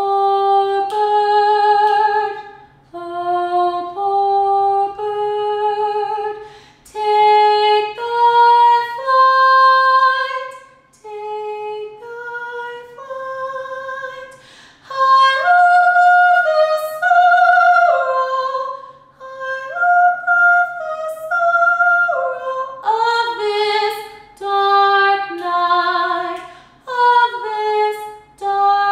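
A woman singing unaccompanied: a slow melody of held notes with a light vibrato, in short phrases with brief breaks between them.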